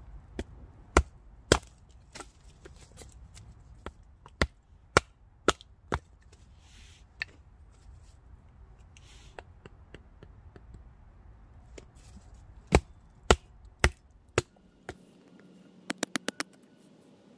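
Wooden baton striking the spine of a fixed-blade knife to split small sticks into kindling: sharp knocks, about eight in the first six seconds and four more evenly spaced a little past the middle, then a quick run of light taps near the end.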